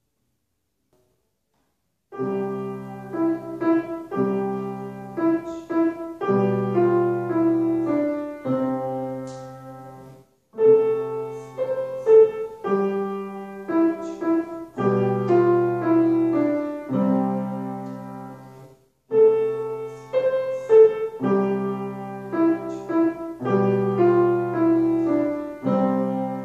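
Grand piano played solo: a slow piece in phrases, a melody over held low notes and chords, beginning about two seconds in. The playing breaks off into a moment of silence twice, about ten and nineteen seconds in, and resumes each time.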